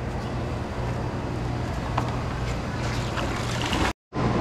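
Steady low mechanical hum under a wash of background noise, with a few faint clicks; the sound cuts out completely for a moment near the end.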